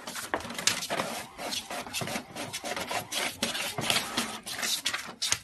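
A cat's claws scratching and scraping at a hard, smooth surface: a dense, irregular run of rasping scrapes.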